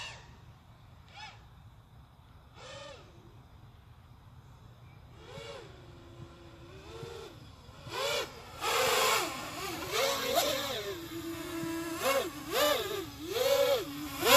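5-inch racing quadcopter's brushless motors (2750KV, on a 4-cell battery) whining in flight, their pitch rising and falling with each throttle change. Faint at first, getting much louder from about eight seconds in as the quad flies in close, with quick repeated throttle punches near the end.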